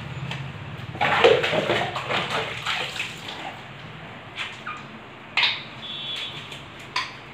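Water splashing during a dog's bath on a bathroom floor, loudest for about two and a half seconds starting a second in, followed by a couple of sharp knocks.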